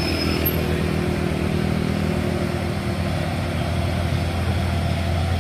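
Cargo truck's diesel engine pulling steadily up a steep hairpin climb. A low engine hum grows louder from about two-thirds of the way through.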